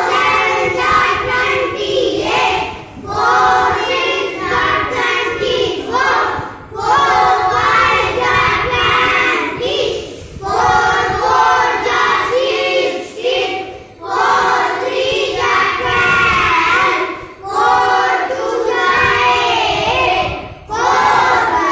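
A class of young children chanting in unison in a sing-song rhythm, reciting a multiplication table backward, in phrases of a few seconds separated by short breaths.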